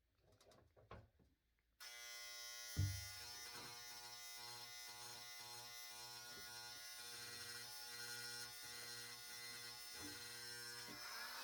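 A small electric power tool's motor switches on about two seconds in and runs steadily with a buzzing hum and hiss, with one sharp knock shortly after it starts.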